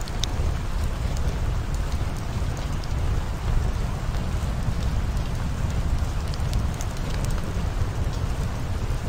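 Recorded steady rain, an even rushing noise that is heaviest in the low end, with scattered sharp drop ticks. It is the kind of rain track that subliminal videos lay over their hidden affirmations.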